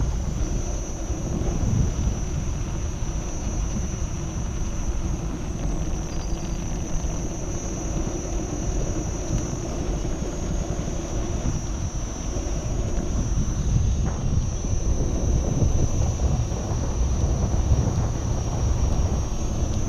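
Wind buffeting the microphone and tyre noise from a Kingsong KS14 electric unicycle rolling over pavement, a steady uneven rumble, with a thin high whine held steady above it.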